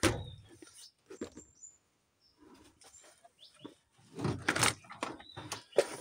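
Plastic toys knocking and rustling as they are moved around on a cupboard shelf: scattered short knocks, with a louder cluster about four to five seconds in.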